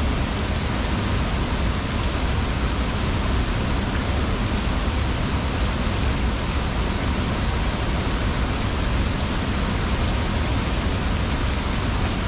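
Steady, loud rush of a waterfall pouring over a rock ledge into a pool close by.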